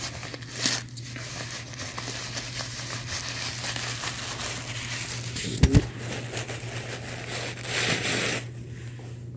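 White paper stuffing being pulled out of a sneaker, a steady crinkling rustle with a single knock a little past halfway and a louder rustle near the end, over a steady low hum.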